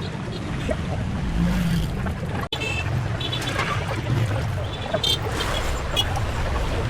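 Busy street traffic: motor engines running in a steady low rumble, with several short high-pitched beeps, like horns, in the middle and near the end.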